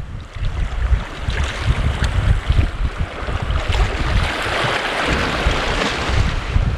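Wind buffeting the microphone, with small waves washing against a rocky sea shore; the wash grows louder about four seconds in, then eases.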